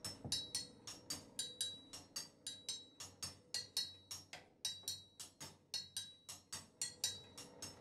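Light, rapid drumstick strikes on a drum kit in an improvised pattern, about four to five uneven taps a second, each with a short high ring.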